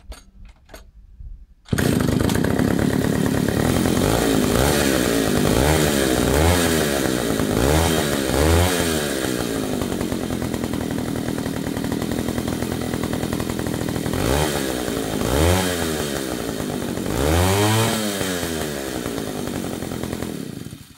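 After a few faint clicks, the Dolpima BK-3A chainsaw's two-stroke engine starts about two seconds in and runs unloaded. It is blipped up in short revs several times, settling back to idle between them, and shuts off at the end.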